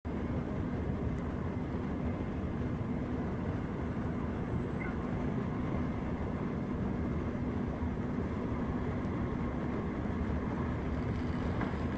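Steady rumble of a railway yard, with a constant low hum running under it.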